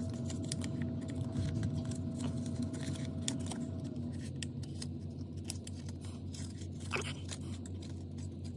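Light paper-and-cardboard handling noise as a photocard is worked into a folded cardboard card stand: scattered small clicks and scrapes over a steady low background hum.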